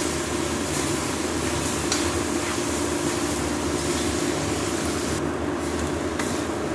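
Metal spatula stirring and scraping chicken livers and chillies around a metal wok, with light scrapes against the pan, over the steady sizzle of the reducing sauce.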